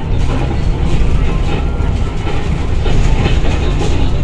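City bus in motion heard from inside the cabin: a loud, steady low rumble of engine and road with light rattles from the bus body and fittings.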